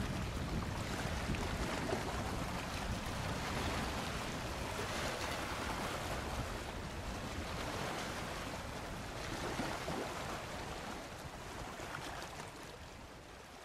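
Wind blowing on the microphone with small waves washing over choppy open water, a steady rushing noise that grows fainter toward the end.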